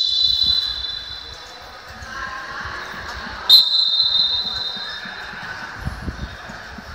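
A basketball bouncing on the court, with a loud, high-pitched referee's whistle blown suddenly about three and a half seconds in and fading over a couple of seconds. The tail of an earlier whistle is still dying away at the start.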